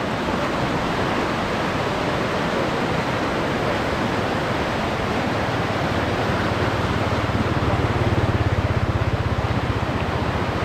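Fast floodwater rushing and churning past a concrete wall, a steady roar of water. From about six seconds in, a small motorbike engine's low, rapid pulse joins it, loudest about eight seconds in, then fades.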